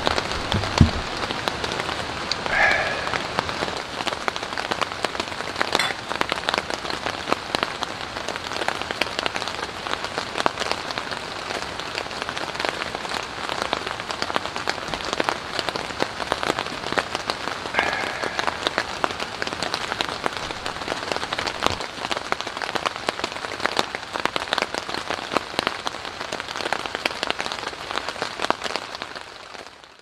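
Steady rain falling on a camping tarp overhead, a dense patter of many separate drop hits.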